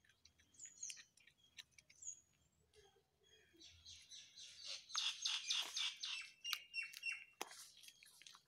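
Birds chirping, with a fast run of loud chirps about halfway through. Faint clicks and crunches come from a cat chewing a lizard.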